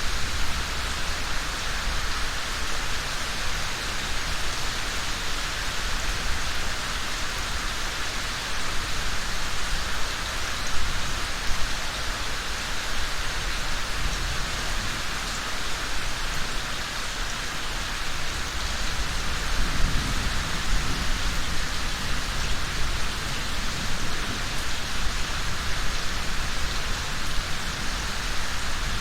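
Steady rain falling, an even hiss of drops on surfaces, with a low rumble swelling briefly about midway and again about two-thirds of the way in.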